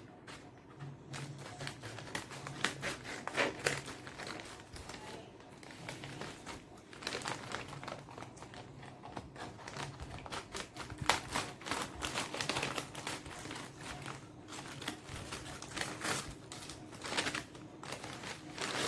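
Packaging being opened and handled by hand: a long, irregular run of crinkles, clicks and rustles.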